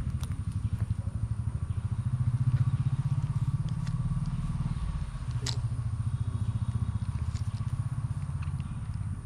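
A small engine running steadily, a low rumble with a fast, even pulse. There is one sharp click about five and a half seconds in.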